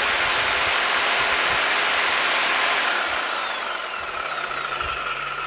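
CAT DX58U corded reciprocating saw running unloaded with a steady high motor whine, then released about three seconds in, the whine falling as the motor winds down.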